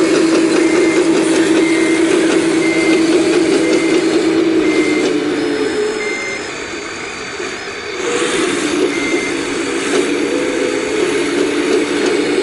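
Full-size excavator's diesel engine working hard, with its alarm giving short, even beeps about once a second. The engine note sags for a couple of seconds around the middle, then picks back up.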